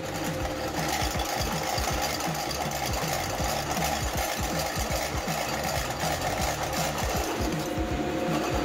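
Vertical milling machine feeding a hole saw into Schedule 40 stainless steel pipe to cope the tube end: a steady machine hum with a fast, even rattle as the saw teeth cut.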